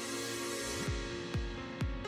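Electronic background music: a held synth chord under a hissing sweep, then a steady kick drum comes in about a second in, about two beats a second.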